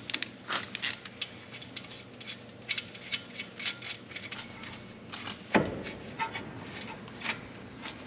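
Scattered light metallic clicks and clinks from hand tools and a front brake caliper being unbolted and worked loose on a Jeep's front wheel hub, with one heavier clunk about five and a half seconds in.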